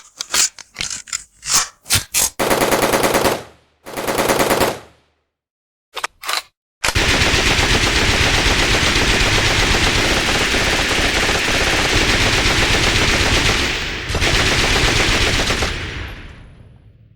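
Gunfire: about half a dozen single shots in quick succession, then two short bursts of rapid automatic fire. A couple more shots follow, then a long sustained burst of automatic fire lasting about nine seconds, which fades away near the end.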